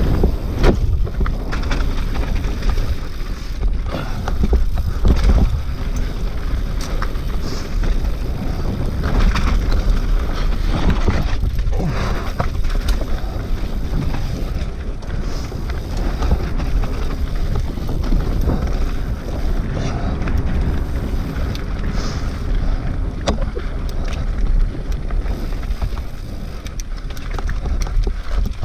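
Mountain bike ridden fast down a rocky dirt singletrack, heard from an on-board camera: wind buffeting the microphone over the rumble of tyres on dirt and stones, with frequent knocks and rattles as the bike hits rocks.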